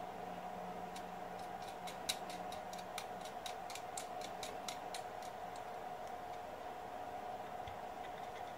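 A run of light, quick metal clicks, about four a second for a few seconds, as a nut is spun by hand onto the bolt of a TV wall mount's swivel bracket.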